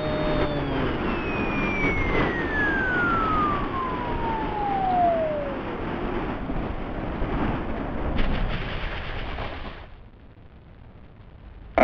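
Electric RC model plane's motor whine falling steadily in pitch over about six seconds as the motor is throttled back and winds down for landing, under a steady rush of wind on the onboard microphone. A few bumps about eight seconds in as it touches down and slides through the grass, after which the sound drops right away.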